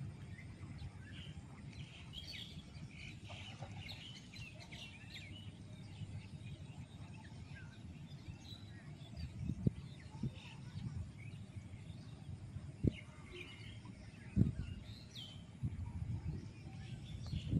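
Small birds chirping here and there over a steady low rumble, with a few short sharp knocks in the second half.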